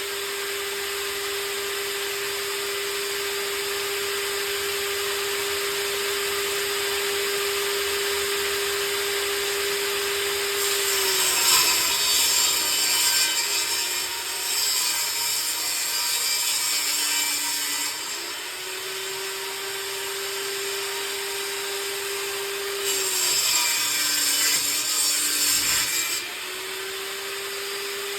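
Old table saw running with a steady whine, ripping wooden boards twice: about halfway through and again near the end, the blade cuts with a loud rasp as the motor's pitch drops under load, then climbs back when the cut is through.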